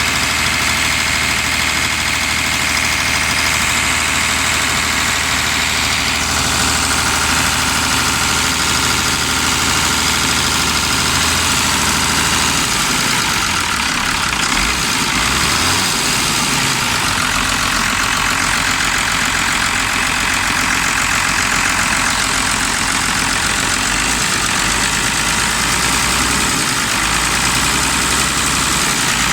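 IVECO truck diesel engine idling steadily, with a loud steady hiss over it; the engine's low note shifts about halfway through.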